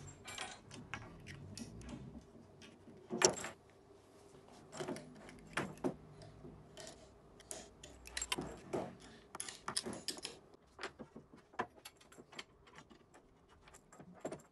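Small metal parts clinking and clicking as an aluminium mounting plate, stepper motor and loose screws are handled and fitted by hand, with a sharper clink about three seconds in.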